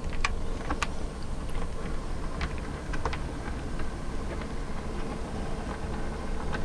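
OO gauge model locomotive running smoothly over the track: a steady low motor hum with scattered light clicks from the wheels on the rails.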